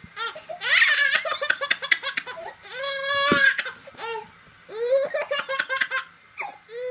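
A baby laughing hard in repeated bursts of about a second each, with high-pitched squeals.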